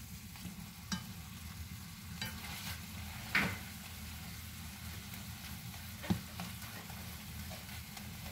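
Sliced mushrooms with garlic and onion sizzling in butter in a stainless frying pan, stirred with a plastic spatula. The spatula scrapes the pan three times, loudest a little over a third of the way in.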